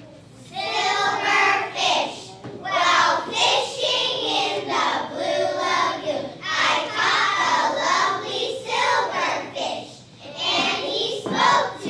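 A group of young children singing together in phrases, with short breaks between lines.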